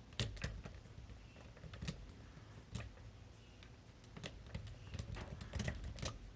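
Metal rake pick being worked in and out of an American Series 10 wafer lock under tension, making irregular runs of sharp little clicks and scrapes as it jiggles the wafers toward the shear line.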